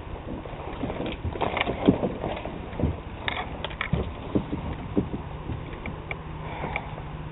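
Irregular knocks and cracks of branches and twigs against a kayak as it is pushed through overhanging brush, about a dozen sharp hits at uneven intervals.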